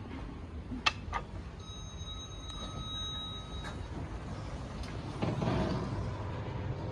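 Otis lift equipment: two clicks, as of buttons being pressed, then a steady electronic beep for about two seconds, and a swell of mechanical noise near the end, like the lift doors moving.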